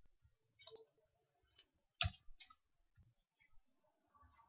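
Faint computer keyboard keystrokes: a few irregular, scattered clicks, with one louder key press about two seconds in.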